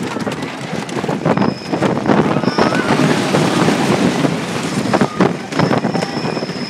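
Coney Island Cyclone wooden roller coaster train running fast along its track: a dense rattle and clatter of the cars with wind buffeting the microphone. A thin high whine comes in about a second and a half in and again near the end.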